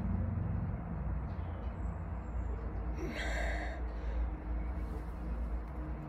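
A man breathing heavily and sighing, out of breath, with one louder exhale about three seconds in, over a steady low rumble.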